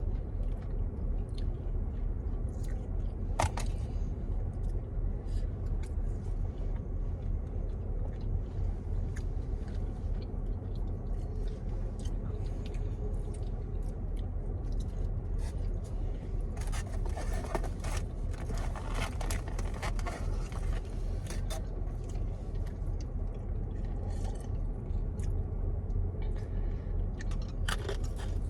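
Close-up eating of Wingstop chicken wings: chewing and crunching, with a sharp click about three and a half seconds in and a run of crackling clicks past the middle. A steady low rumble runs underneath.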